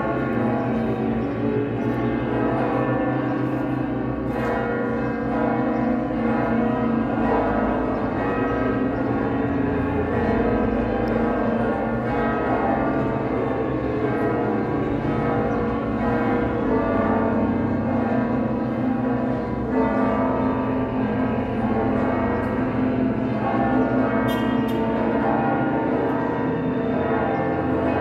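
Several church bells ringing continuously, their many tones overlapping into a steady, unbroken peal.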